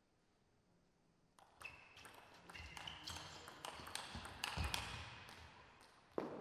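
Table tennis rally: the celluloid ball clicking off the rackets and the table in quick succession for about four seconds, then one louder, sudden sound near the end.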